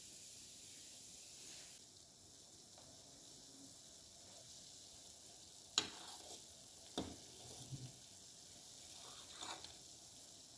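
Faint, steady sizzling of food frying in hot oil in a pan, with a few sharp knocks about halfway through.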